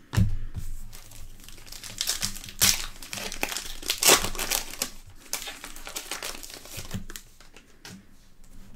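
Foil wrapper of a trading-card pack crinkling as it is torn open by hand, with several loud sharp crackles in the first half, then quieter rustling as the cards are handled.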